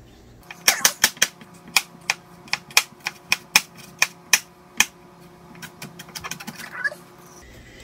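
Chef's knife chopping a bell pepper on a plastic cutting board: sharp knocks of the blade striking the board at about three a second, turning into quicker, lighter taps near the end.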